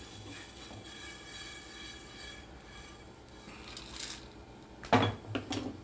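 Coriander seeds being dry-roasted in an iron kadai and stirred with a wooden spatula, faint, then tipped out of the pan onto a steel plate about three and a half seconds in. A short louder sound comes near the end.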